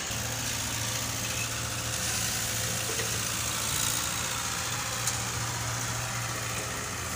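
Truck diesel engine idling steadily with a low, even hum.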